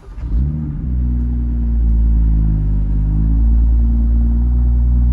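BMW M2's N55 turbocharged straight-six starting up through the stock exhaust, the revs flaring briefly and then settling into a steady idle.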